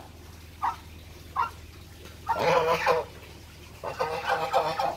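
Young domestic geese calling: two short squeaky calls, then two longer runs of pitched honking chatter about two and four seconds in.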